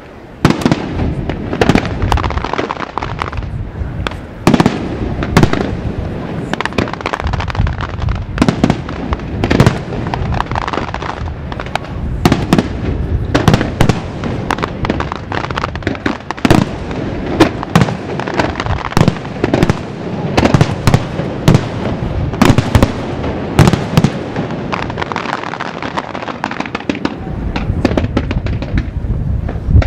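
Display fireworks going off continuously: aerial shells bursting and launching in a dense run of sharp bangs, with crackle between the loud reports, which come every second or so.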